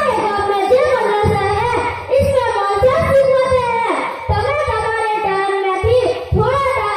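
A boy singing verses into a microphone, amplified through a PA system, in long sustained notes that waver and glide in pitch.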